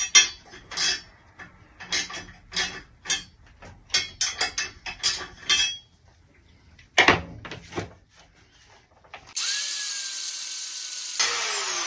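A run of clicks and knocks as an angle grinder is handled and set against a seized exhaust stud, then, about nine seconds in, the grinder cutting into the steel stud: a loud harsh grinding with a whine that sinks slightly under load.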